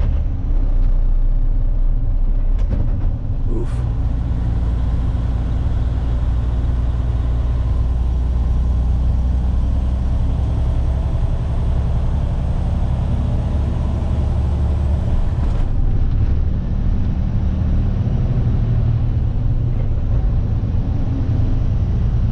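Semi truck's diesel engine running steadily under way at low speed, heard from inside the cab as a low drone, with a couple of brief clicks about three seconds in.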